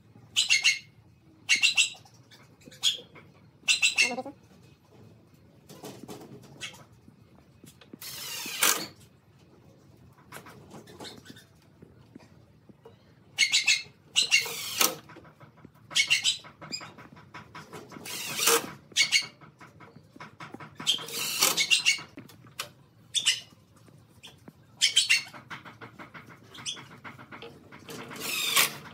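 Makita 18V cordless impact driver driving screws into pallet wood in a series of short bursts of rapid hammering rattle, most brief and a few lasting about a second.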